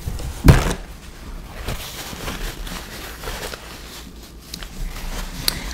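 Close-miked eating sounds: mouth noises of chewing mac and cheese, with one loud thump about half a second in and a few small clicks after it.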